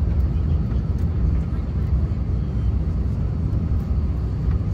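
Steady low rumble of an Airbus A350-1000 on short final, heard from inside the cabin: the Rolls-Royce Trent XWB engines at approach power and the airflow past the fuselage, just before touchdown.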